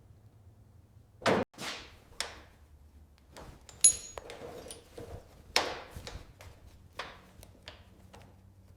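Small tools and parts on a scale model car being handled: a run of irregular sharp clicks and knocks, one near the middle with a brief metallic ping.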